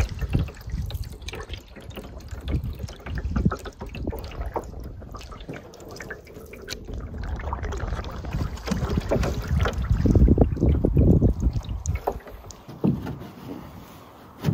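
Water sloshing and splashing around a canoe as it is paddled, with a low rumble of wind on the microphone and a few short knocks near the end.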